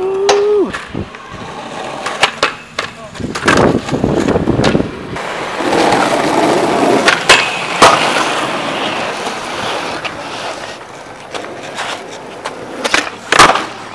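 Skateboard wheels rolling on rough concrete, with several sharp clacks of the board popping and landing. A short shout comes right at the start.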